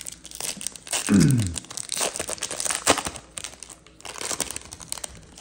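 Foil wrapper of a Topps Chrome baseball card pack crinkling and being torn open by hand, with the loudest rip about a second in and a sharp crackle near three seconds.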